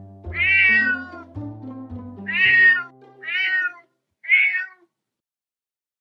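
A cat meowing four times, each meow rising and then falling in pitch, over soft background music. The music stops just before the last meow.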